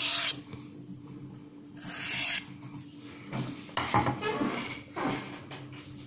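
Steel knife blade (CPM S30V) being drawn along a Victorinox ceramic sharpening rod in light strokes, honing a small micro bevel onto the edge at a slightly higher angle. One stroke comes at the start and another about two seconds in, then a few shorter scrapes follow.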